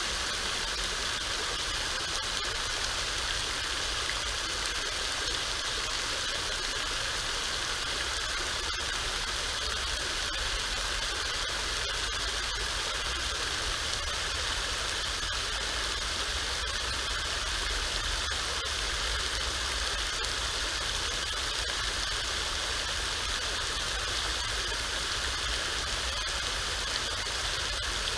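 Dandelion-style fountain: water jets spraying out in a dome and falling back into the basin, a steady, even rush of splashing water.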